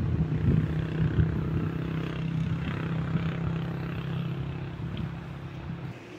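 An engine running steadily with a low, even hum, cutting off suddenly near the end.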